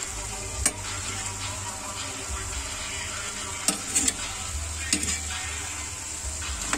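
Meat and onion rings sizzling in a non-stick pan as they are stirred with a spatula. A handful of sharp clicks and scrapes of the spatula against the pan stand out, one near the start and several in the middle.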